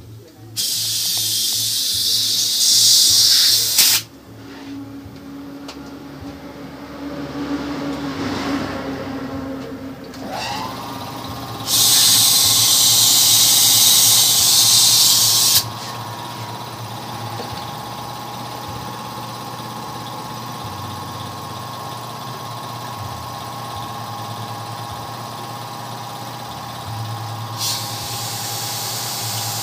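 Compressed air hissing from an air hose into a tubeless motorcycle tyre in three bursts of a few seconds each, inflating it on the rim. A steady machine hum of several even tones starts about ten seconds in and runs under the later bursts.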